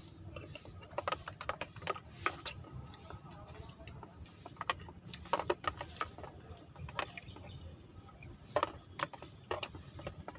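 A metal spoon clicking and scraping against a plastic food container during eating, in irregular small clicks, over a low steady background rumble.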